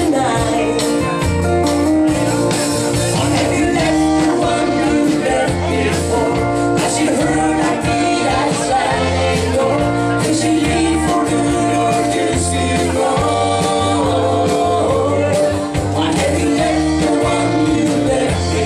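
Live country band playing at full volume: electric guitars, bass and drums with a steady beat, and singing over them.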